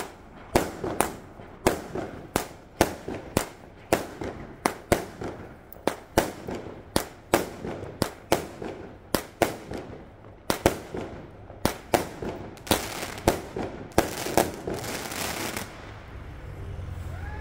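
Fireworks going off in a steady string of sharp bangs, about two a second. Near the end the bangs come thicker with crackling, then they stop.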